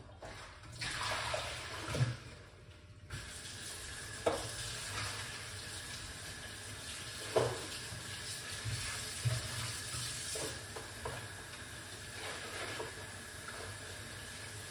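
Oil heating in an aluminium pot on an electric hot plate: a steady faint hiss with occasional light pops and ticks.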